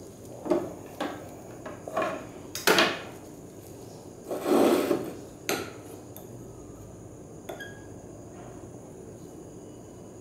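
Lab glassware and a plastic syringe being handled and set down on a wooden bench: about six knocks and clinks over the first six seconds, one of them longer around the middle, then only faint handling sounds.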